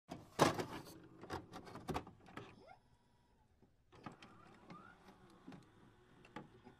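Faint glitchy sound effects for an animated loading-bar intro: scattered clicks and crackles, the loudest about half a second in, with a couple of short rising chirps.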